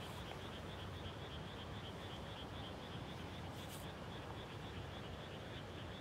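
Frogs calling in chorus from a flooded rice paddy just after planting: a steady, rapid, evenly repeated pulsing of high calls, over a low steady rumble.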